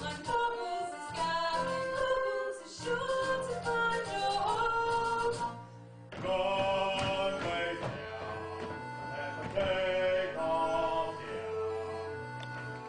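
Musical-theatre number: cast voices singing together over instrumental accompaniment. The music dips briefly about halfway through, then comes back in.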